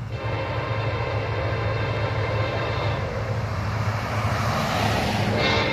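Union Pacific freight train's diesel locomotives, led by an EMD SD70ACE, running as they approach: a steady low engine drone with a whine above it, growing slightly louder toward the end.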